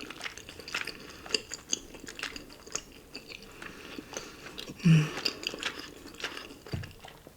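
Close-miked wet chewing and mouth smacks of someone eating cheesy ramen noodles and chewy rice cakes, with many small irregular clicks. A short hummed 'mm' about five seconds in.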